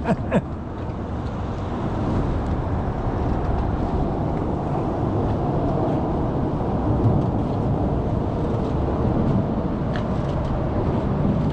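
Steady low outdoor rumble with no clear pitch, with a couple of faint short clicks near the start and near the end.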